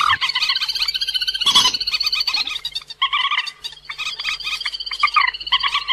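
Recorded calls of the cuốc biển, a waterhen-type rail, played as a trapping lure: a fast run of short repeated notes with a brief break about three seconds in.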